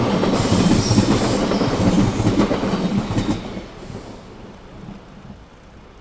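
Train running on the rails, a rumble with irregular clatter, with a brief high hiss about half a second in that lasts about a second. The rumble then fades steadily over the second half.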